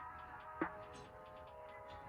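Background music: held tones over a steady beat with a strong hit about every second and a half.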